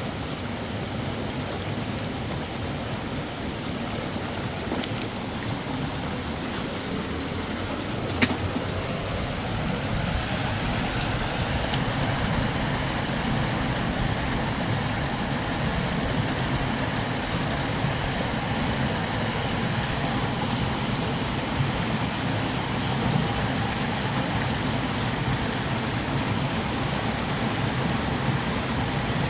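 Steady rushing of flowing river water, growing a little louder about ten seconds in, with a single sharp knock about eight seconds in.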